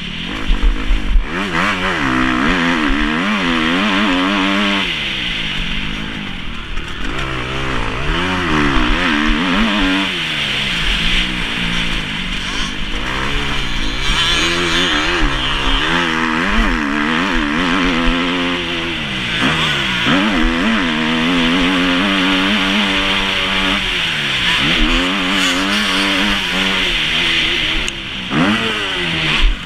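Kawasaki KX250F motocross bike's single-cylinder four-stroke engine, heard from an onboard camera, revving up and falling back over and over as the rider accelerates, shifts and rolls off the throttle. It drops off briefly near the end.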